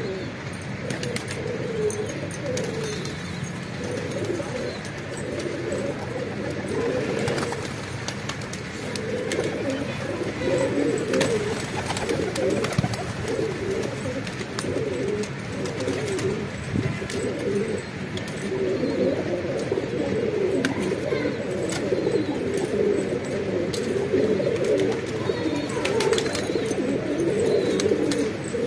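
A flock of domestic pigeons, Sherazi (Lahore) pigeons among them, cooing continuously, with many calls overlapping.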